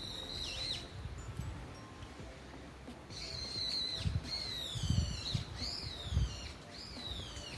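Birds calling: one whistled call at the start, then a run of loud, downward-slurring whistles from about three seconds in. A few low rumbles sound underneath.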